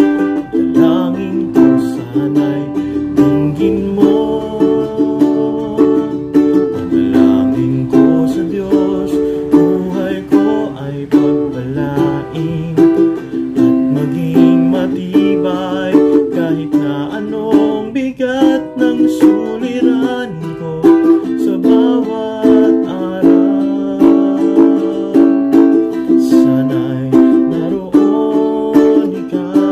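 An all-koa tenor ukulele being strummed rhythmically in steady chords, with a man's voice singing along low underneath.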